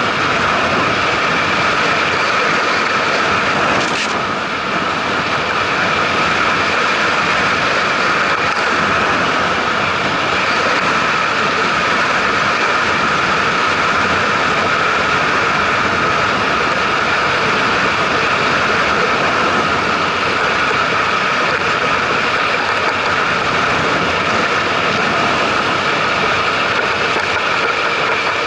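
Steady rushing noise of wind and road from a camera mounted on a moving vehicle, with a brief dip about four seconds in.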